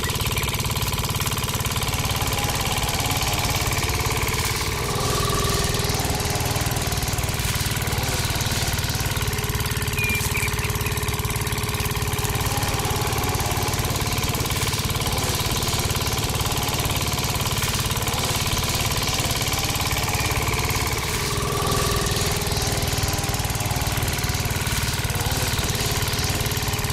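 Small engine running steadily at an even speed, with a fast, even chatter.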